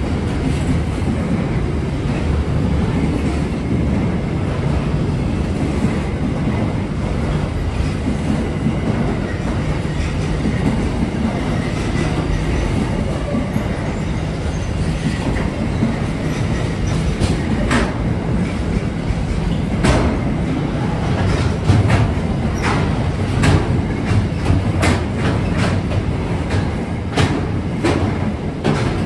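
Container wagons of a long freight train rolling past: a steady, loud rumble of steel wheels on rail. In the second half, sharp clacks of wheels passing over rail joints come more and more often, several a second at times.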